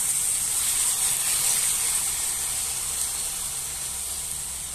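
Marinated pork belly slices sizzling as they sear in a little oil in a pan: a steady frying hiss that eases off slightly over the few seconds.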